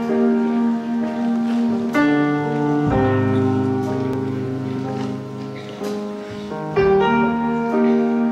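Piano playing a slow introduction of held chords. New chords are struck about two seconds in, again a second later, and near the end.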